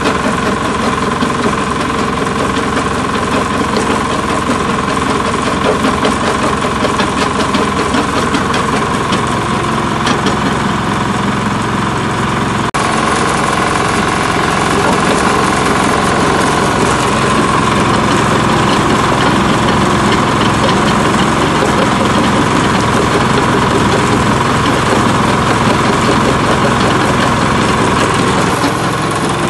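Diesel engine driving a jaw crusher, running steadily under load while it crushes stone. There is a short break in the sound about thirteen seconds in.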